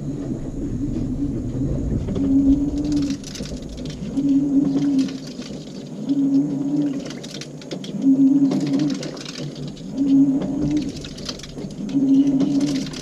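LG 18 kg washing machine agitating an overloaded wash of jeans. The motor hums in short pulses about every two seconds as the drum turns, and each pulse is followed by a swish of the wet clothes and water tumbling.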